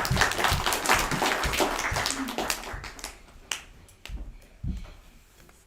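An assembly audience of schoolchildren and staff clapping, loudest at first and dying away after about three seconds, followed by a few scattered knocks.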